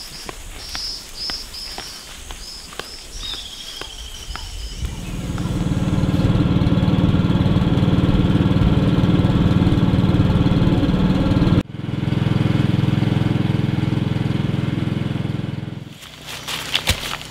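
A small boat motor running steadily, the loudest sound, starting about five seconds in, with a sudden break about two-thirds of the way through, and stopping shortly before the end. Before it, footsteps and high, repeated chirps with one falling whistle; after it, faint crackling.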